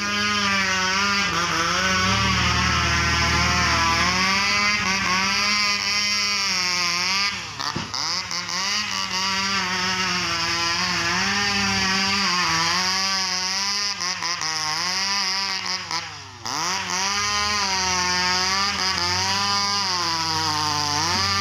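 Chainsaw engine running at high revs, its pitch wavering up and down. It drops off briefly twice as the throttle eases.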